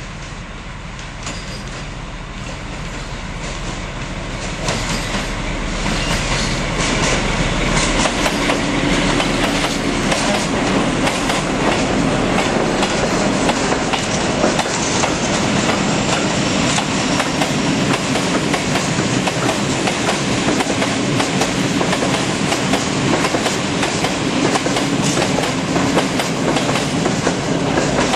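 Freight train hauled by an SU45 diesel locomotive rolling past, its wheels clicking over the rail joints. It grows louder over the first several seconds, then holds steady as the wagons go by.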